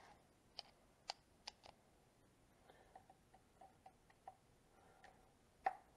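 Faint, scattered clicks and ticks of a hand screwdriver snugging metal screws into the plastic rear differential case of a Redcat Kaiju RC truck, with a sharper click near the end.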